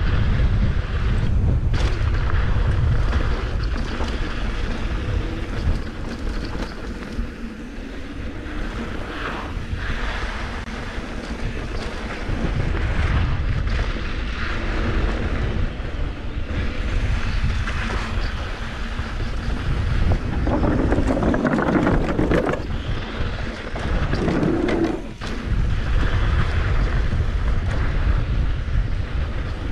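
Wind rushing over the microphone and the rumble of mountain bike tyres rolling fast down a dry, rocky dirt trail, with a few knocks from the bike over rough ground. The rush eases for a few seconds several seconds in and dips briefly near the end.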